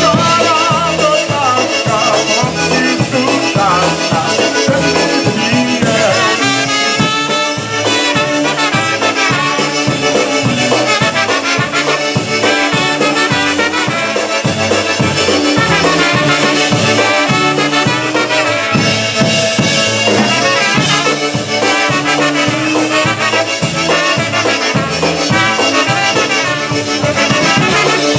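Live polka band playing an instrumental passage: two trumpets carry the melody together over a steady, bouncing two-beat bass.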